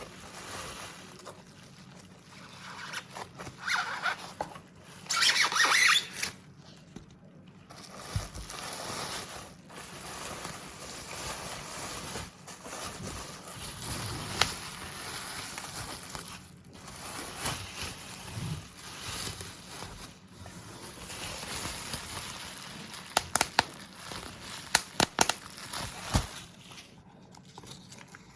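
Packaging being handled and unwrapped: irregular rustling and crinkling, with a louder burst of rustling about five seconds in and a quick run of sharp clicks and knocks near the end.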